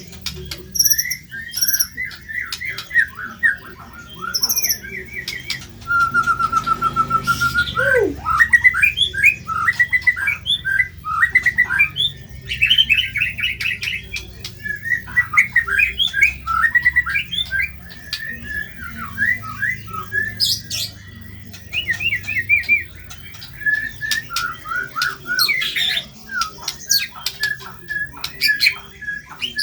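White-rumped shama (murai batu) singing a loud, varied song of rapid chattering phrases and repeated notes, with a steady even trill about six seconds in.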